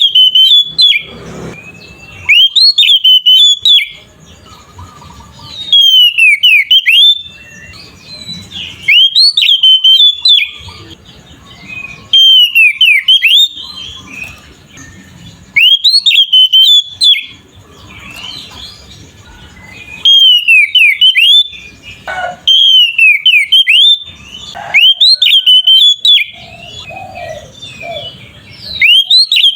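Oriental magpie-robin (kacer) singing: loud bursts of sweeping whistled notes, each about a second long, repeating every three to four seconds with quieter gaps between.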